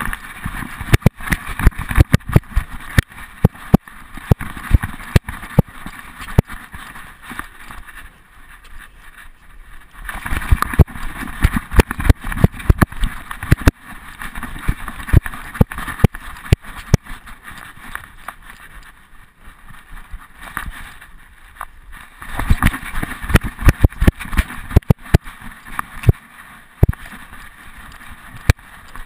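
Rattling and knocking of a GoPro camera loose in a dog's harness as the dog moves about, over rumbling wind and rubbing noise on the camera's microphone. The knocks come in three busy spells with quieter stretches between.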